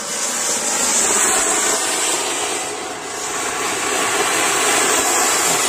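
Ground firework fountain spewing a tall column of sparks, giving a loud, steady, jet-like hissing rush that dips slightly about halfway through.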